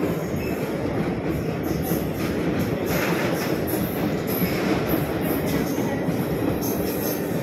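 Freight train of petrol tank wagons rolling past close by: a steady rumble of steel wheels on the rails, with clattering knocks as the bogies cross rail joints and faint high metallic squeals now and then.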